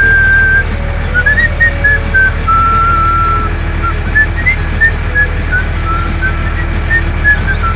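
Background music: a whistled tune of short hopping notes over a steady low drone.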